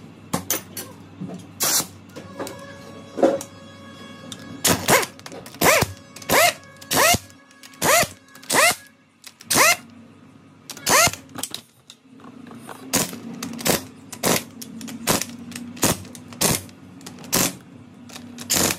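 Bolts of a Bajaj Discover 125's magneto-side engine cover being tightened with a socket wrench during reassembly. It makes a series of sharp metallic clicks, several with a short rising chirp, coming in bursts about every half-second to a second.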